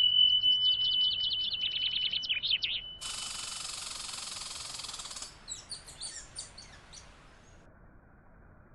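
Songbird singing: a held high whistle under a fast trill for about three seconds, then a run of quick, high chirps. Between them, a steady hiss starts and stops abruptly after about two seconds.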